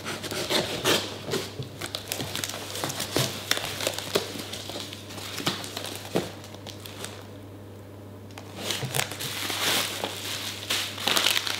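Cardboard shipping box being pried open: packing tape tearing and cardboard flaps rustling and crackling, with a short lull past the middle. Near the end, plastic bubble wrap crinkles as it is lifted out of the box.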